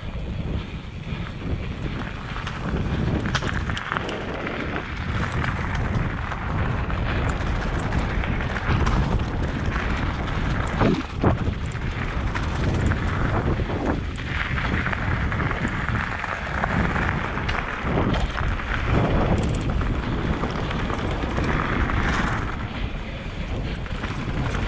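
Mountain bike descending fast: wind noise on the body-mounted camera's microphone over the tyres crunching on gravel and dirt, with the bike rattling and knocking over bumps.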